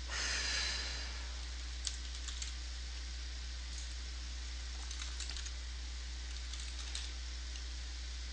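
Faint typing on a computer keyboard, a few scattered clusters of keystrokes, over a steady hiss and low electrical hum.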